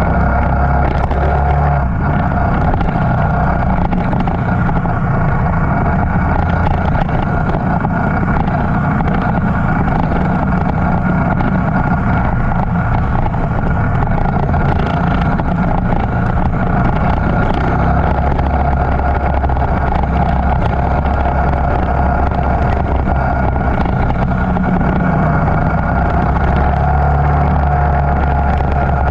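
Motorcycle engine running steadily at an even speed, with no revving up or down.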